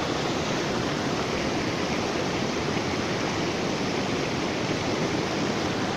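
Rushing river water making a steady, unbroken noise.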